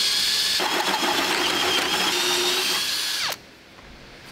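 Electric drill running at speed with a high whine, biting into wood from about half a second in. It winds down with falling pitch just after three seconds in.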